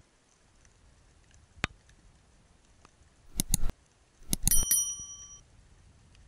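Subscribe-button overlay sound effect: a sharp click, then a quick run of mouse clicks, then a bright bell ding that rings for under a second.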